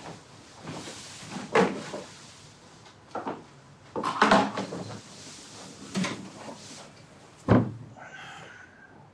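A series of sharp knocks and bangs, like doors or cupboards being handled or objects being set down, spaced a second or two apart. The loudest comes about four and a half seconds in. A short squeaky sound follows near the end.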